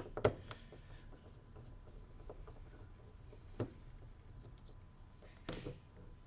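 A few light clicks and taps from small paddle-shifter parts and a screw being handled: two close together at the start, another about three and a half seconds in, and a slightly longer one near the end.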